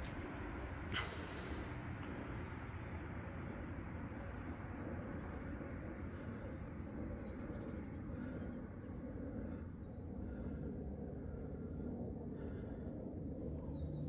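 Forest ambience: a steady low rumble with many faint, short, high bird chirps from about five seconds in, and one sharp click about a second in.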